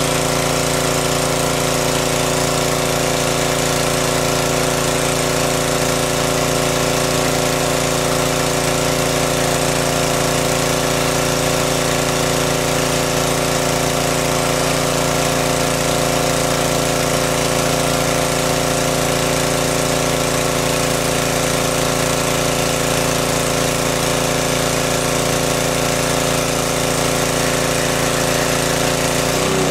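Small petrol engine of a water pump running steadily at one constant speed.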